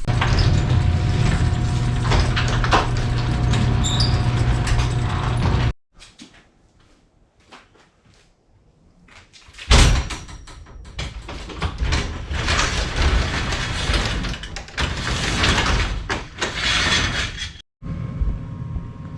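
LiftMaster Professional 1/3 HP garage door opener running with a steady motor hum, then the door rattling along its tracks. Each stretch stops abruptly, with a short quiet gap between them.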